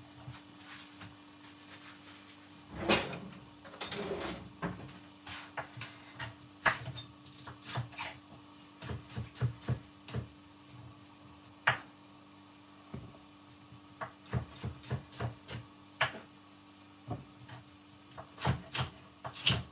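Kitchen knife cutting bell peppers on a wooden chopping board: irregular knocks of the blade on the board, some in quick runs. A steady faint hum lies beneath.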